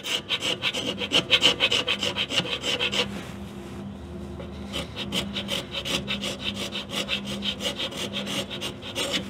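Hand scraper worked in quick short strokes over the slide-valve port face in the steam chest of a Skinner 11x12 steam engine, several strokes a second, easing briefly about three seconds in and then picking up again. It is scraping away the high spots marked by bluing to bring the valve seat flat, and it is cutting, under heavy hand pressure.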